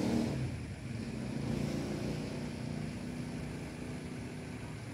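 A low, steady engine hum, as of a motor running at an even pace somewhere near.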